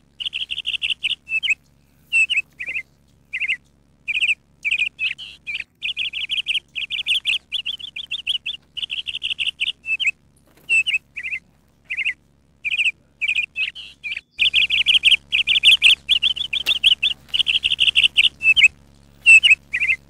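Newly hatched songbird nestlings begging in a ground nest: high chirps in quick runs, broken by short pauses and single chirps.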